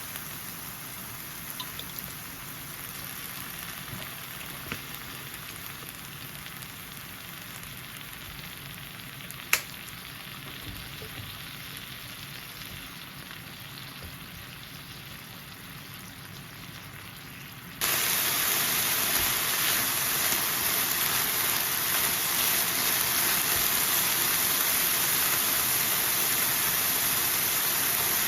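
Bibimbap ingredients sizzling on an electric hot plate, a steady frying hiss. A single sharp click comes about a third of the way in, and about two-thirds in the sizzle suddenly becomes much louder and brighter.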